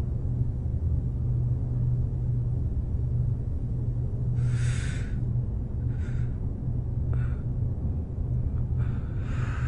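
A steady low hum, with a few short breathy sounds, the longest about halfway through and another near the end.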